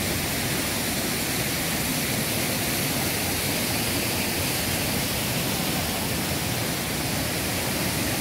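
Rushing water of a waterfall and its rocky mountain stream, a steady even hiss.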